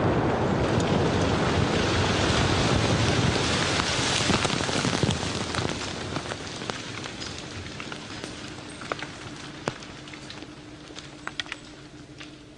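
The rumbling roar of a large bomb blast slowly dying away, while falling debris patters down as scattered sharp ticks and taps that stand out more as the roar fades.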